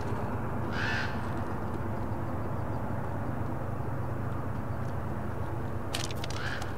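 Diesel locomotives of an approaching Union Pacific freight train running with a steady low rumble. A bird calls twice, about a second in and again near the end.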